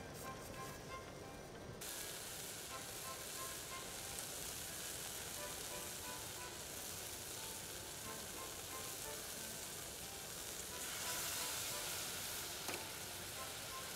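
Keema curry sizzling steadily in a metal pot as its added water boils off and the minced meat cooks down nearly dry. The sizzle grows louder about eleven seconds in, when yogurt goes into the hot pot.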